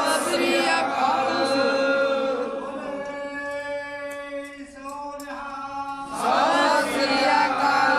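A man chanting a Sikh prayer, holding one long steady note through the middle, with several voices chanting together near the end.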